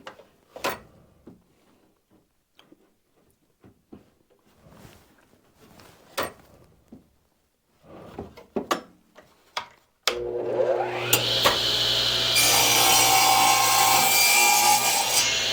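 A few light knocks of a wooden board being handled, then about ten seconds in an electric power saw spins up with a rising whine and cuts through the board, running steadily and loudly.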